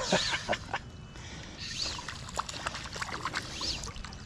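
Creek water splashing and sloshing as a small hooked fish is played in at the surface. Near the start there are sharp knocks and rustling as a jacket sleeve brushes right against the camera.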